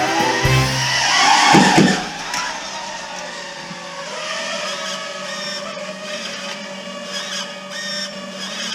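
Music ends about two seconds in. After it comes an FPV racing quadcopter's brushless motors and propellers, whining steadily with small rises and falls in pitch as the throttle changes.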